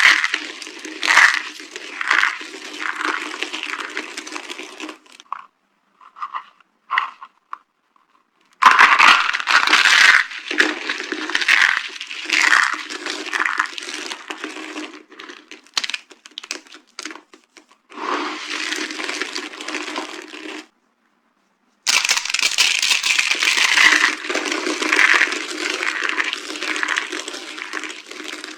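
Dry soap boxes being crushed, crunching and crackling with sharp snaps, in several long bursts separated by short pauses.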